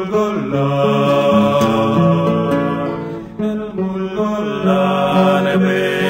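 Background music: a slow piece of long held notes that change pitch every half second to a second.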